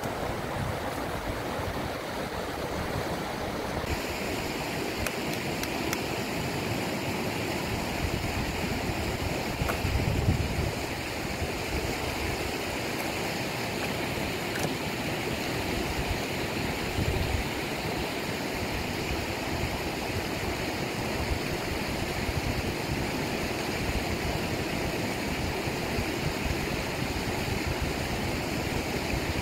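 Steady rushing of a flowing river, an even wash of water noise with no let-up.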